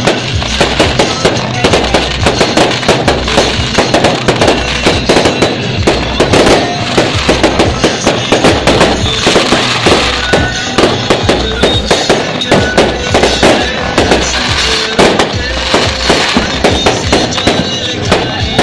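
Aerial fireworks bursting and crackling overhead in a dense, rapid string of bangs, with music playing alongside.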